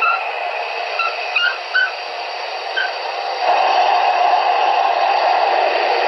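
Steam-locomotive idle sounds from an HO-scale Broadway Limited Santa Fe 3751 model's DCC sound decoder, played through its small onboard speakers: a steady hiss with a few short chirps in the first three seconds. About three and a half seconds in, the hiss grows louder and lower.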